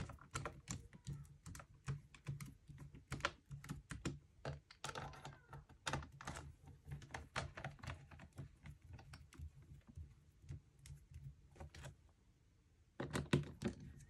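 Small irregular clicks and taps of a hand screwdriver driving screws back into a laptop's bottom cover, with the tool and fingers knocking lightly on the panel. A pause of about a second comes near the end, then the clicking starts again.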